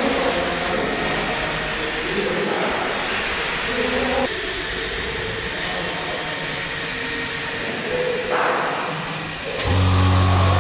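CNC laser cutting machine running on acrylic sheet: a steady rushing hiss of moving air with faint shifting tones, and a low hum starting near the end.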